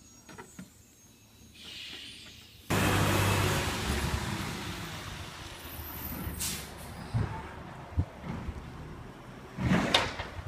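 Garbage truck engine running as the truck drives up a wet street, starting loud all at once about three seconds in, with a few short knocks and a short air-brake hiss near the end.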